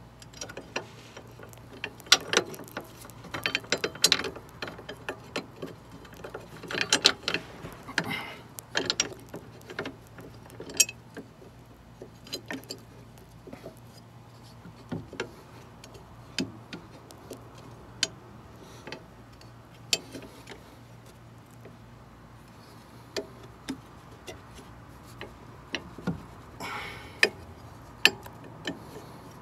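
Irregular small metallic clicks and clinks of bolts being fitted and threaded by hand into a rear sway bar mounting bracket under a car. They are busiest in the first few seconds and again near the end.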